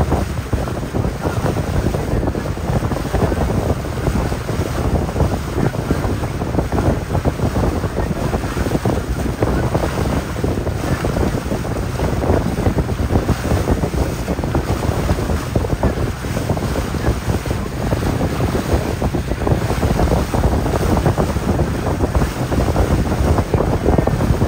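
Wind buffeting the microphone on a moving boat at sea, over a steady rush of water.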